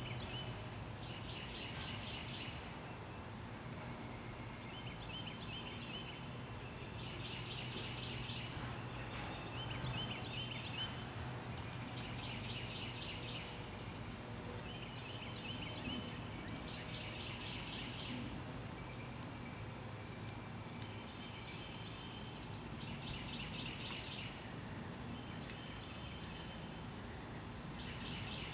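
A songbird singing the same short song over and over, every three to four seconds, each a quick trill followed by a faster run of notes, over a steady low hum.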